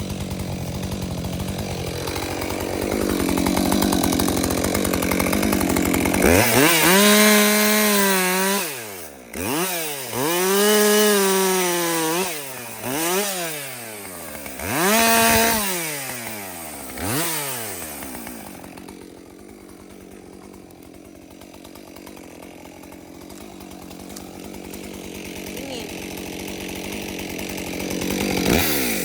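Two-stroke chainsaw running steadily, then revved up and let fall back about five times in quick succession. Afterwards it settles to a lower, steady running that builds again near the end.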